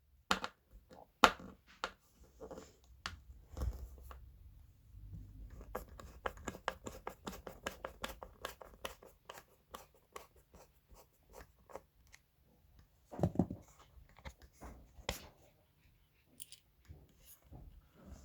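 Scrapes, rubbing and small clicks from hands handling the parts of a subwoofer being taken apart, with a dense run of small clicks in the middle and a louder knock about 13 seconds in.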